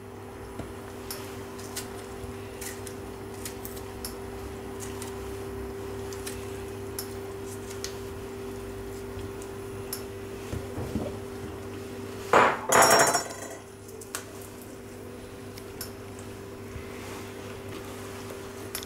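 Light clicks and taps of a kitchen knife and hands working on a countertop, with one short, louder clatter about twelve seconds in, over a steady low hum.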